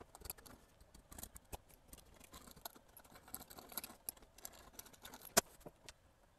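Small clicks, taps and scrapes of hand tools working on a circuit board as the old capacitors are removed. One sharper click comes about five seconds in.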